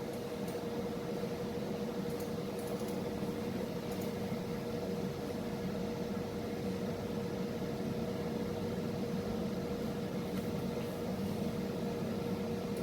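Steady background hum with one faint steady tone held throughout, and a few faint clicks.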